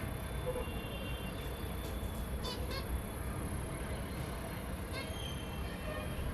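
Zebra finches giving short chirps, a quick run of them about two and a half seconds in and a few more near the end, over a steady low background hum.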